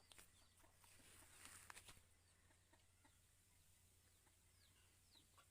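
Near silence with faint bird calls: a few short, high, falling chirps scattered through, and a couple of faint clicks.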